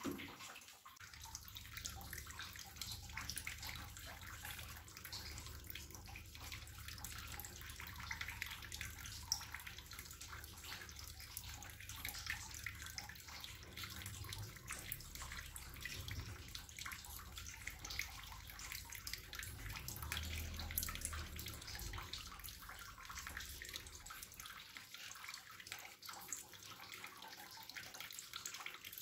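Hot liquid chocolate agar-agar pudding being poured in a thin stream from a plastic measuring jug into small plastic cups: a faint, steady trickle with many small clicks, over a low rumble.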